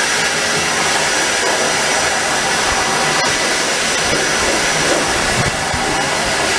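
Table saw running at full speed: a loud, steady machine noise with a thin high whine.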